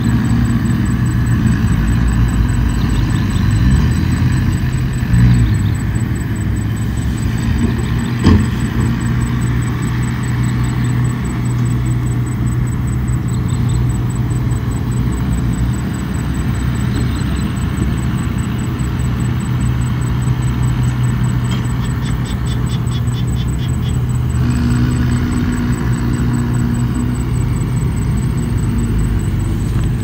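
Komatsu bulldozer's diesel engine running steadily. There is a single knock about eight seconds in, and a short run of fast clicking about twenty-two seconds in.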